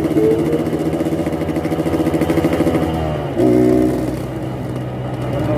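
Yamaha RX-King two-stroke single-cylinder motorcycle engine running, its exhaust set up for the growling 'ngorok' note. About three and a half seconds in there is a short louder burst, after which the engine note settles lower.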